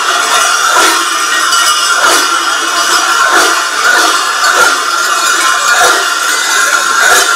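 Many large cowbells worn on the backs of Sardinian carnival mask costumes, clanging together in uneven jolts as the wearers jump and stamp, over a constant jangling ring.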